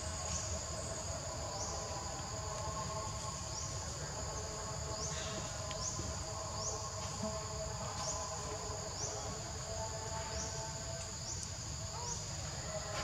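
Steady high-pitched insect chorus, with a short rising chirp repeating about once a second.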